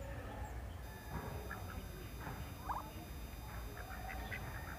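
Helmeted guineafowl giving short, scattered calls over a faint steady low rumble.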